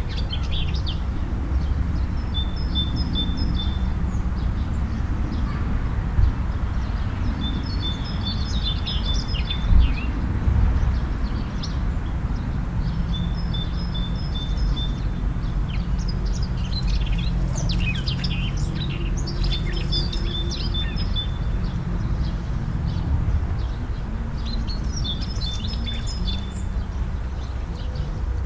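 A songbird repeating a short, high, chattering phrase every five or six seconds, over a steady low rumble.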